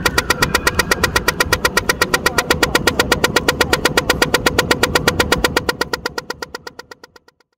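Pedestrian crossing signal at traffic lights ticking rapidly, about ten ticks a second, the sound of the walk phase. The ticking fades out near the end.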